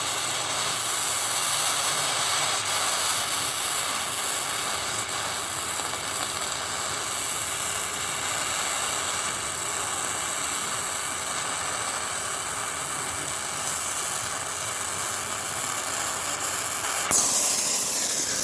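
Multiplaz 3500 water-vapour plasma torch hissing steadily while welding rusty steel plate. About a second before the end the hiss turns suddenly louder and sharper.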